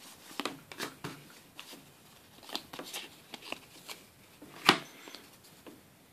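Yu-Gi-Oh trading cards being handled: a run of soft card slides and flicks, with one sharper click about three-quarters of the way through.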